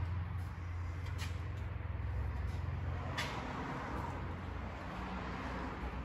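A steady low hum with a faint hiss above it, and a couple of faint clicks, about a second and three seconds in.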